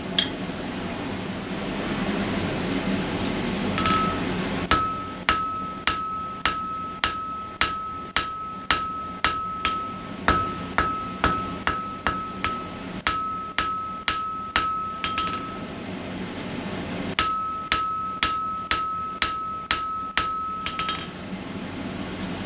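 Hand hammer striking steel on an anvil at about two blows a second, each blow ringing out a clear metallic note. The hammering comes in two runs, a long one and then a shorter one after a brief pause, over a steady background rush.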